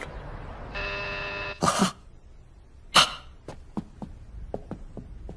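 A doorbell button clicks as it is pressed, and a door buzzer sounds steadily for about a second. Two sharp knocks follow, then a run of light, quick footsteps.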